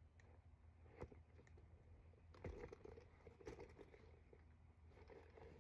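Quiet handling noise from a handbag being turned over and examined. There is a soft click about a second in, then faint rustling with a few light clicks from about two and a half seconds in.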